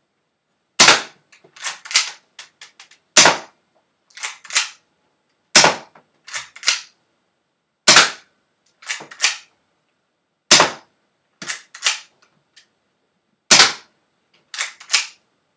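BB gun firing six single shots about two and a half seconds apart, each a sharp crack. About a second after each shot come two fainter clicks or knocks.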